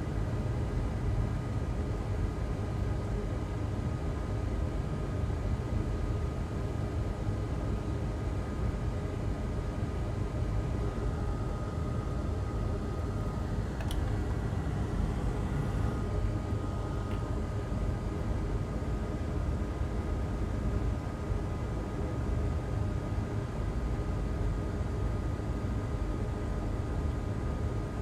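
Steady low hum and hiss from a running fan or small motor, with faint steady whines above it and a single click about halfway through.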